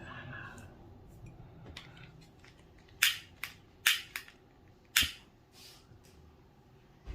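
Sharp clacks of hard objects knocking together: five in quick succession starting about three seconds in, and a softer one near the end.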